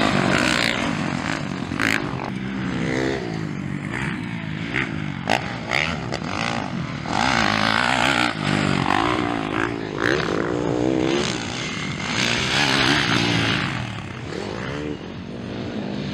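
Motocross dirt bike engines revving hard, the pitch rising and dropping again and again through gear changes and throttle blips.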